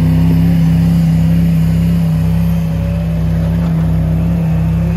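Off-road vehicle engine held at steady high revs under load during a rope recovery, pulling a stuck Jeep Cherokee out of deep snow.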